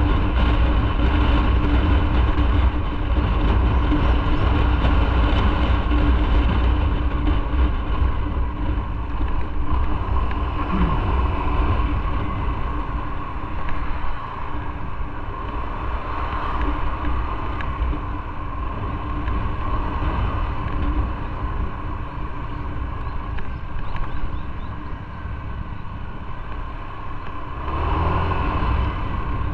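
Motorcycle engine running with road noise while riding, heard from the bike itself; steady, easing off somewhat after about twenty-four seconds and picking up again near the end.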